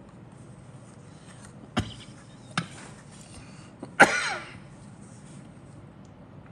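Paper decal sheet handled and flexed in the fingers: two sharp clicks, then a louder short crackle about four seconds in.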